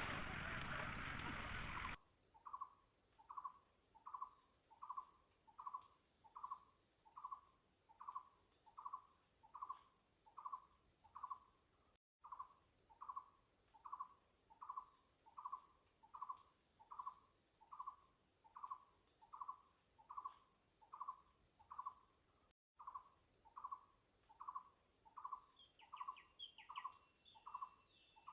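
Forest ambience: a steady high-pitched insect drone with a short call repeating about twice a second, and a few quick bird chirps near the end. A noisy rush covers the first two seconds.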